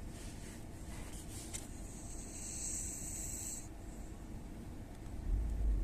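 Snoring: slow sleeping breaths, with a long hissing breath about two seconds in. Near the end a much louder low rumble starts.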